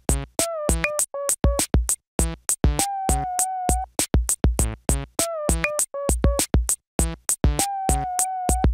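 Electronic outro music: a drum-machine beat under a synthesizer melody that repeats its phrase about halfway through.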